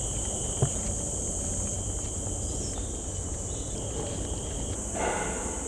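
Steady high-pitched insect chorus over a low background rumble, with a single sharp tap about half a second in.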